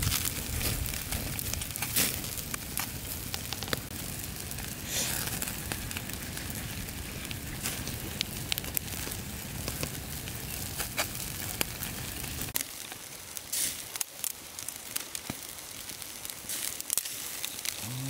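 Open wood fire crackling and popping under a whole fish grilling on a bamboo rack, with many sharp irregular snaps. A low rumble underneath stops suddenly about two-thirds of the way in, leaving the crackles.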